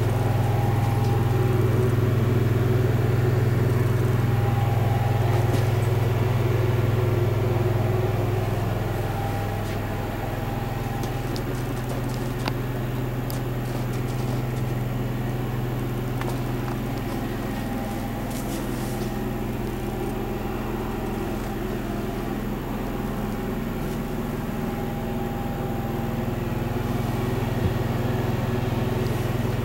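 Steady low hum of a running motor, a little quieter from about nine seconds in and building again near the end.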